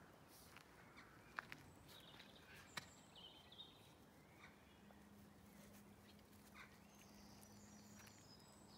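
Near silence: faint bird chirps, a few light clicks and taps in the first few seconds, and a faint low hum in the second half.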